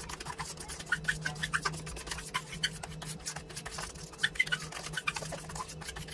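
A spoon stirring and scraping a thick vegetable paste in a stainless steel bowl, with irregular clicks and taps of metal on metal, over a steady low hum. Fish-food pellets are being mixed into ground vegetables.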